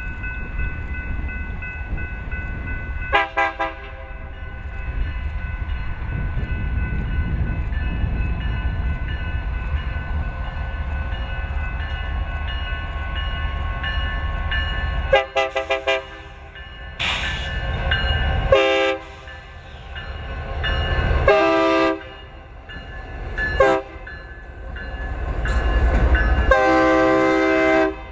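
Diesel freight train rumbling past, led by BNSF and CN locomotives, with a steady high whine through the first half. A multi-tone locomotive air horn gives a short blast about three seconds in. From about halfway on it sounds a run of blasts of varying length, the last one long and loud.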